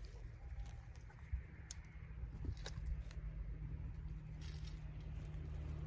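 Hands digging and rummaging through loose potting soil in a grow pot, with scattered light clicks and taps over a steady low hum.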